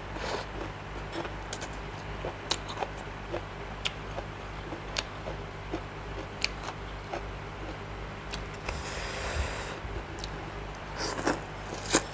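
A person chewing spicy seafood papaya salad and octopus close to the microphone: irregular short wet clicks and smacks, with a brief breathy hiss about nine seconds in.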